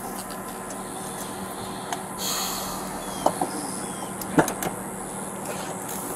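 A few sharp clicks and knocks over steady background noise, the loudest a little after three seconds and a little after four seconds in, with a brief rush of noise about two seconds in.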